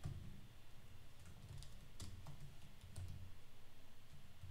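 Faint typing on a computer keyboard: an irregular run of single key clicks over a low steady background hum.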